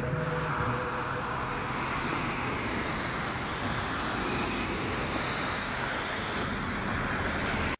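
Steady rushing noise of road traffic, cars driving past on a snow-covered street.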